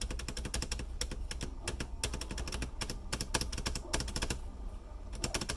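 A 3D-printed PETG spacebar on a mechanical keyboard pressed over and over, a quick run of sharp clacks with a short break a little before the end.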